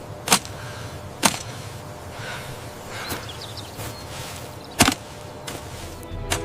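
Four sharp, short cracks at uneven intervals over a steady rushing noise; the third crack, just under five seconds in, is the loudest.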